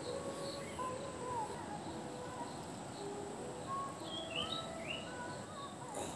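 Birds calling and chirping, scattered short whistled notes and quick rising chirps, over a steady high insect hum and a background hiss.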